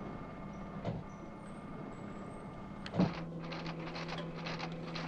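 Laboratory test machinery running with a steady electrical hum and a click about a second in. A clunk about three seconds in switches it to a lower hum with fast, irregular clicking.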